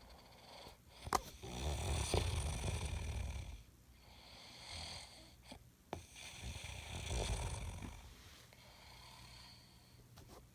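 A man snoring in his sleep: a run of snores a few seconds apart, the loudest about a second in and about seven seconds in, with weaker ones between and toward the end.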